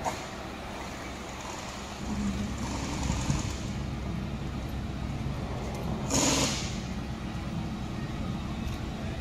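Steady low rumble of an idling vehicle engine, with a short loud hiss about six seconds in.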